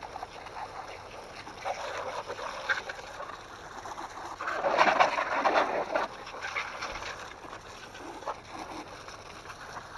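Water from a hose spraying and splattering onto an RC car's chassis and wheels, rinsing off cleaner; uneven, loudest around the middle.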